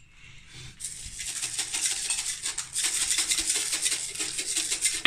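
Unicorn sugar sprinkles rattling inside a small shaker container as it is shaken rapidly over a baking tray, starting about a second in and going on as a fast, continuous rattle.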